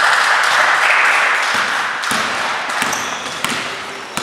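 Spectators in a gym hall cheering in a loud swell that fades over a few seconds, with a basketball bouncing and a few sharp knocks on the court.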